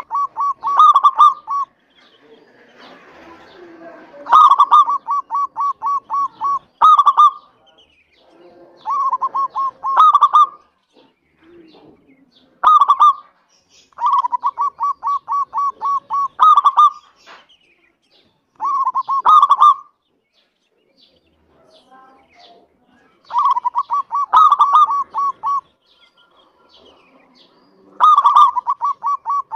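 Zebra dove (perkutut) singing: about eight phrases of rapid, evenly spaced staccato coos, each ending in a few stronger notes, with short pauses between the phrases.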